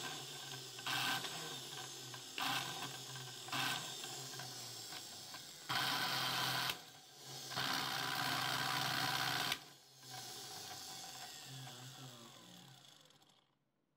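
Electric motor of a restored 220-volt juicer blender running with a steady hum, getting briefly louder several times as its push-button speed switches are pressed, with two longer loud spells around the middle. Near the end it is switched off and winds down to silence.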